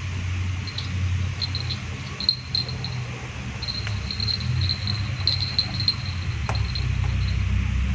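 Steady low hum with a faint, repeated high-pitched chirping over it, and a couple of soft clicks.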